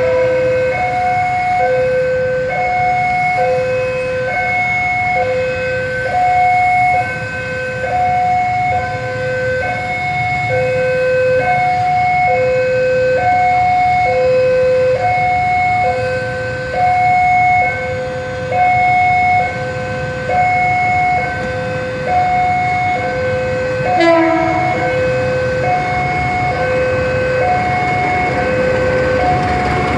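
Level-crossing warning alarm sounding a steady two-tone high-low signal, switching pitch about once a second, the warning that a train is approaching with the barriers down. A short horn blast sounds about two-thirds of the way through, and the rumble of the approaching train grows at the very end.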